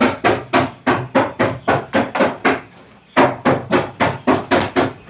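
A rapid run of sharp percussive hits, about five a second, with a short break a little past halfway before it carries on.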